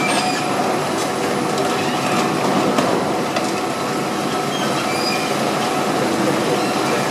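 High-reach demolition excavator breaking up a reinforced-concrete multistorey car park: engine and hydraulics running steadily under a continuous grinding rumble, with scattered cracks and clatters of concrete breaking and debris falling.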